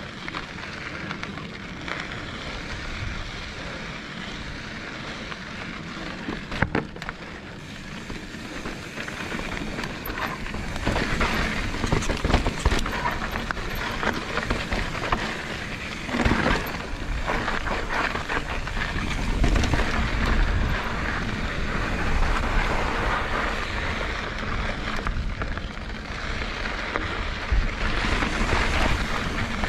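Mountain bike riding a dirt trail: tyres crackling over gravel and the bike rattling, with wind rumbling on the microphone. It gets louder about ten seconds in.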